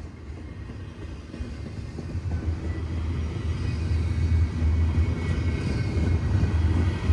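Freight train cars rolling slowly past, a low rumble that grows steadily louder.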